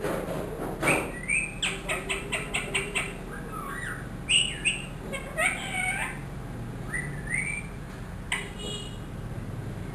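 Pet ringneck parakeet calling: a quick run of short chirps at about five a second, then scattered short rising calls and squawks.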